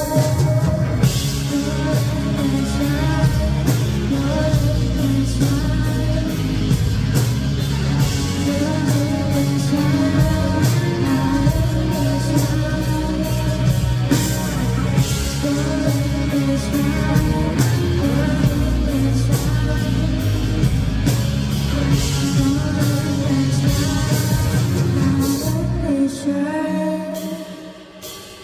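A band playing a song live, with a singer over drums and guitar. The music thins out and drops in level near the end.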